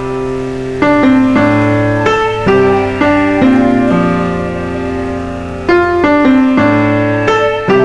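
Slow piano music: single notes and chords struck about once a second, each ringing out and fading before the next.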